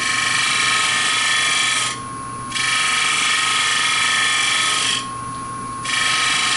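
Gouge cutting the edge of a spinning wooden plate blank on a lathe, cleaning up bandsaw marks on the rim. The cut comes in three passes of a couple of seconds each, with short breaks between. A steady high whine runs underneath.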